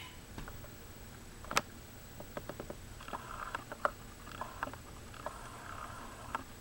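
A pet's reverse-sneezing episode: repeated quick, noisy inhalations through the nose in two spells, with sharp clicks scattered among them.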